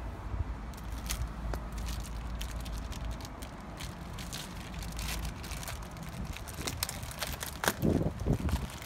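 Plastic zip-top freezer bag crinkling and crackling as hands pull its seal open and work it around a frozen block of ice, with a few louder handling knocks near the end.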